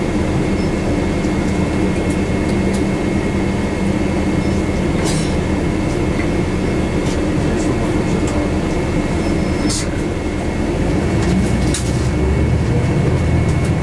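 Interior of a moving city bus: steady low engine and road rumble with a thin, even whine above it, and a few sharp clicks and rattles.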